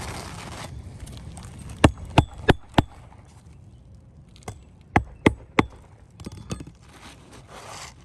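Two runs of quick, sharp hammer strikes on the roof, four and then three, about three a second, each with a faint metallic ring, with a few lighter knocks between and after. Brief scraping of shingles at the start and near the end.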